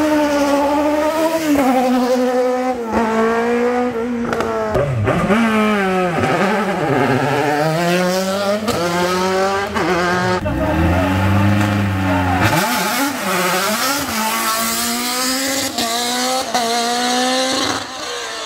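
Open-wheel single-seater race car's engine accelerating hard through the gears, its pitch climbing and then dropping back at each gear change, over and over.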